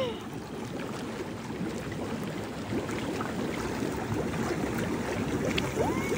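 Outdoor hot tub's jets bubbling and churning the water, a steady rushing burble. A short faint rising tone sounds near the end.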